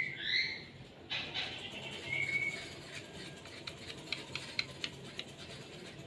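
Black francolin calling: a quick pair of curving chirps at the start and a brief thin whistled note about two seconds in, followed by a run of about eight light ticks.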